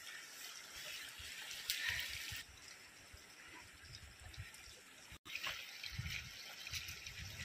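Steady hiss of rushing water from a mountain stream, with low wind rumbles on the microphone now and then. The sound drops out for an instant a little after five seconds in.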